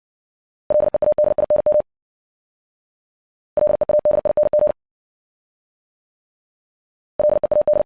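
Morse code at 60 words per minute, keyed as a single mid-pitched tone: three quick runs of dots and dashes about three seconds apart, each run one word.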